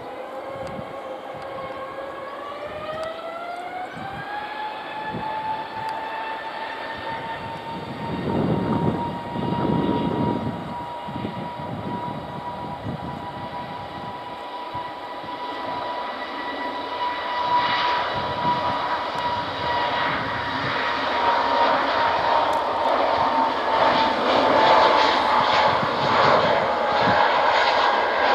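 Airbus A320-family jet airliner's engines spooling up to takeoff thrust: a whine rising in pitch over the first few seconds, then holding steady and growing louder through the takeoff roll. Two brief low rumbles come about eight and ten seconds in.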